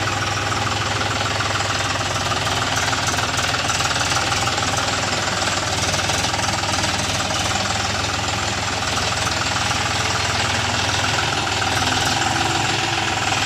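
Brand-new John Deere tractor's diesel engine running steadily, with an even, fast firing rhythm. It cuts off abruptly at the end.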